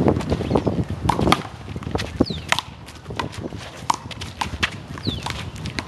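Rubber handball being slapped by hand and smacking off the wall in a rally, a quick irregular run of sharp smacks, some with a short ringing pop.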